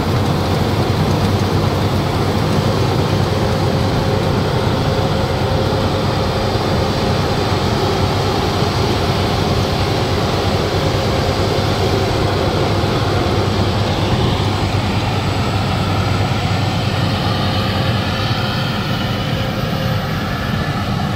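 WD115 Pro compact tracked rice combine harvester running under load: a steady engine and threshing drone as it cuts lodged rice, a little fainter near the end as it moves away.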